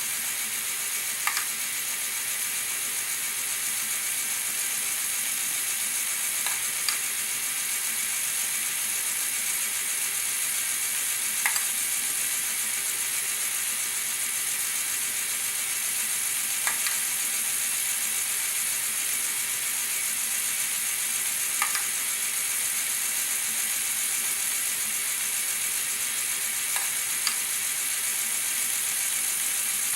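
Motorized LEGO Technic mechanism running with a steady high whir of motor and gears. Sharp clicks, sometimes two close together, come about every five seconds.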